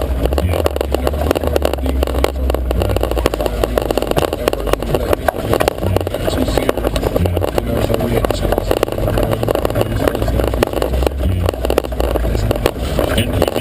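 Jeep Wrangler YJ running over a rough off-road trail: a steady low engine rumble under constant rattling and knocking.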